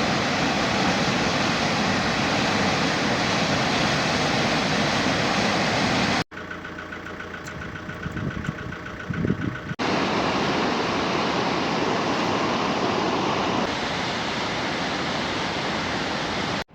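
Waterfall rushing, a steady loud hiss of falling water. About six seconds in a hard cut drops it to a quieter stretch for about three seconds, then the rushing returns at full level.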